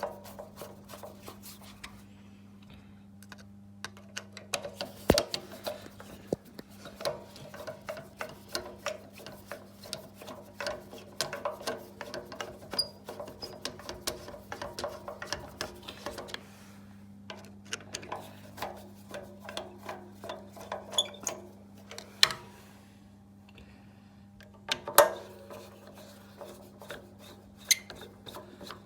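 Hand screwdriver driving screws back into the plastic housing of a Makita chop saw, a long run of small clicking and scraping turns, with a few sharper knocks of tool or parts being handled, about 5, 22 and 25 seconds in. A steady low hum runs underneath.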